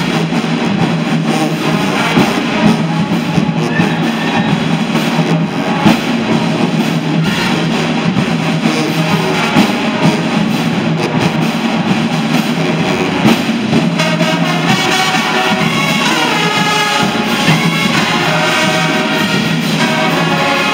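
Marching band playing loudly: a horn section of trumpets, mellophones, saxophones and sousaphones over drums. The music changes about two-thirds of the way through.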